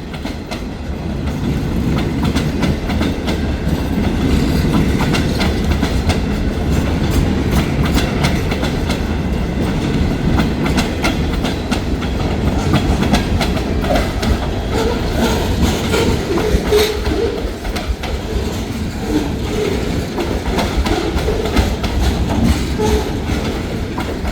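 Freight train's log cars rolling past, the wheels clacking steadily over the rail joints with a continuous low rumble.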